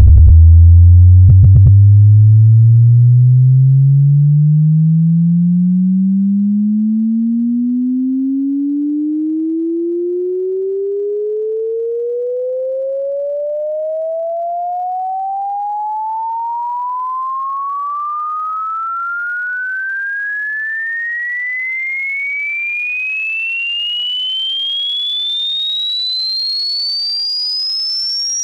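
Sine-wave test-tone sweep rising smoothly and steadily in pitch, from a deep bass hum to a thin high whistle. It is loudest at the low end and settles quieter as it climbs.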